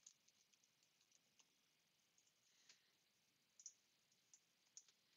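Near silence, with a few faint, isolated clicks from a computer keyboard and mouse.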